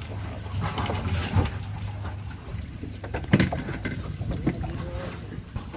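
Wind on the microphone aboard a small boat at sea, over a steady low rumble, with scattered knocks; the loudest knock is about three seconds in.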